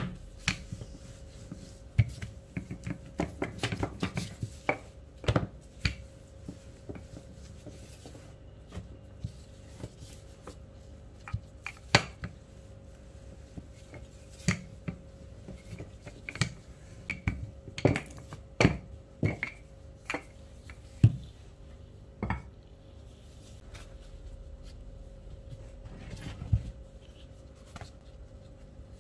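Dough being rolled thin with a wooden rolling pin and handled with gloved hands on a plastic-covered table: irregular knocks and taps, some in quick clusters, over a faint steady hum.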